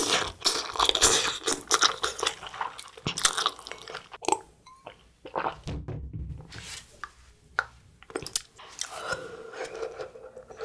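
Close-miked eating of Samyang Buldak Light spicy stir-fried noodles: slurping a mouthful in and chewing, dense and loud for the first few seconds, then quieter, scattered chewing and mouth sounds.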